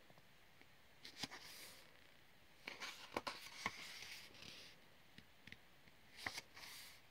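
Faint paper handling: pages of a colouring book being turned and touched, in short rustling bursts with light taps about a second in, around three seconds in and again near the end.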